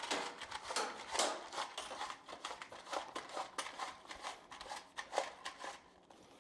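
Irregular rustling, scraping and light clicks of electrical cable being pulled through and handled at the wall, busier at first and dying down near the end.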